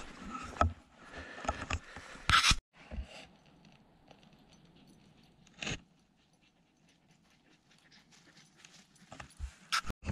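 Footsteps on a hiking trail: irregular crunches and knocks for the first couple of seconds, one louder knock about two and a half seconds in, then mostly quiet with a single step in the middle and a few light steps near the end.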